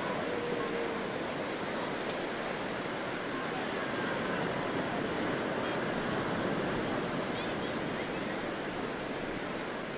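Sea surf breaking and washing onto a sandy beach, a steady wash of wave noise.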